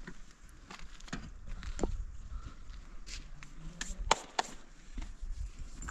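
Scattered light scuffs and knocks from a small solar panel being handled and shifted on a concrete rooftop, mixed with footsteps, over a low rumble; the sharpest knocks come about four seconds in.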